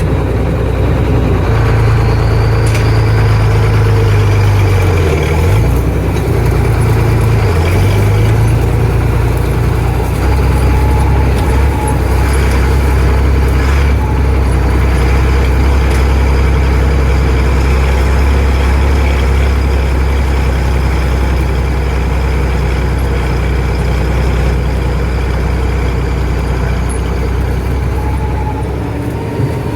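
Tractor engine running steadily under load, heard from inside the cab. Its note dips briefly twice, about five and seven and a half seconds in, then settles to a lower, steady pitch about ten seconds in.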